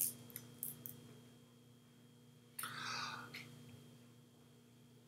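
Faint room tone with a steady electrical hum, a few sharp clicks at the very start, and a short soft noise lasting about a second, some two and a half seconds in.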